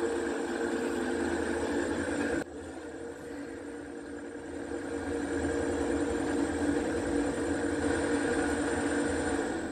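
Electric scooter hub motor spinning under throttle, driven by a repaired Xiaomi M365 Pro 2 controller board as a test that the board runs the motor. It gives a steady electric whine that drops abruptly about two and a half seconds in, then climbs back gradually.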